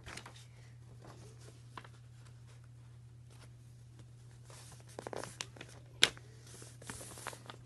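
A sheet of paper being folded and creased by hand. It is faint at first, then a few short rustles and crinkles come about five seconds in, with one sharp click about a second later.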